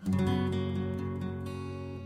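Background music: a new song opens with a strummed acoustic guitar chord that rings on and slowly fades.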